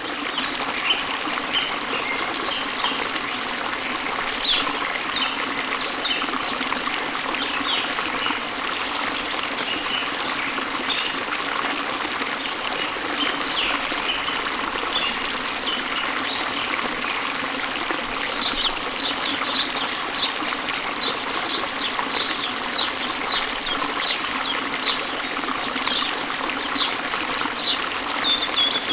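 Steady running water of a waterfall, with birds chirping over it. About two-thirds of the way through, a bird starts a long run of short, quick, high chirps.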